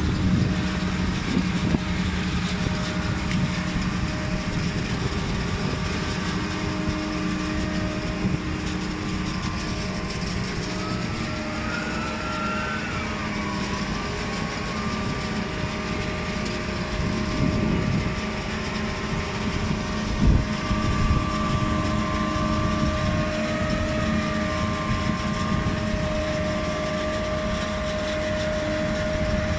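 Grimme Varitron 220 self-propelled potato harvester running while it harvests: a steady mechanical rumble with a constant whine, a higher whine that wavers in pitch now and then, and a single knock about twenty seconds in.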